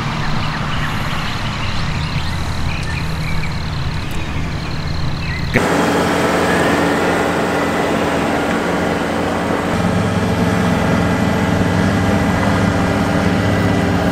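Engine of heavy equipment running steadily. About five and a half seconds in, the sound cuts abruptly to a louder, closer diesel engine, a John Deere compact track loader running, and it grows heavier in the low end a few seconds later.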